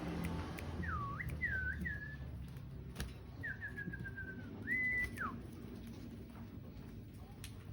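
Sirtu songbird singing a phrase of clear whistled notes: swooping dips, a short run of notes falling in pitch, and a held note that ends in a sharp drop. A single click comes about three seconds in.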